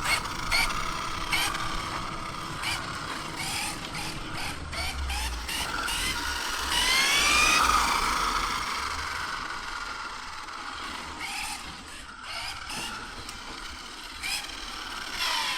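ARRMA Infraction 6S BLX RC truck's brushless motor and drivetrain whining as it drives, with scattered clicks and a rising whine as it speeds up about seven seconds in. Its batteries are nearly flat and the truck is dying out.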